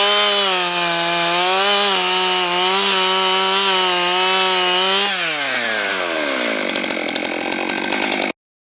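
Stihl MS 661 C-M 91cc two-stroke chainsaw running at full throttle through a log, its engine pitch wavering slightly under load. About five seconds in, the throttle is released and the revs fall away steadily, then the sound cuts off abruptly near the end.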